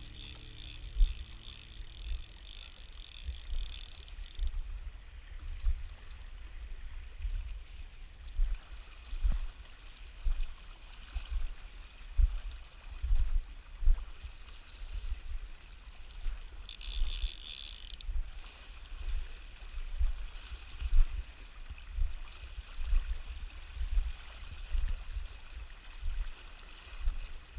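River water sloshing and lapping close to the camera in irregular low thumps, with one short hiss past the middle.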